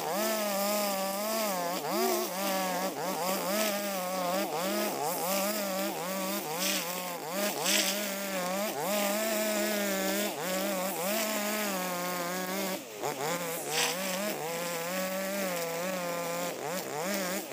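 Husqvarna 542RBS 42 cc two-stroke backpack brush cutter with 2.4 mm square nylon line, cutting tall grass. Its engine pitch keeps rising and falling as the load on the line changes. There are a few brief crackles about two-thirds of the way in and again near the end.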